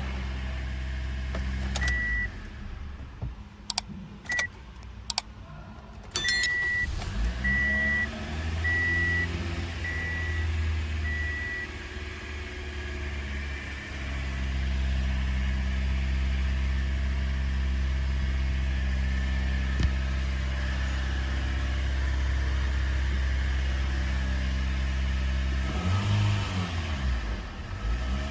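Toyota Corolla dashboard chime beeping several times, then the engine starts, settles and idles steadily, with a brief rev near the end.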